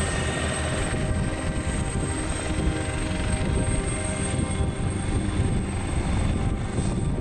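Helicopter running on the ground with its main rotor turning. It makes a steady, dense engine-and-rotor sound with fast low beating and a thin, steady high whine.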